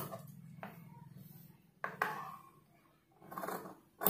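Tailor's scissors cutting through cloth: a few separate snips.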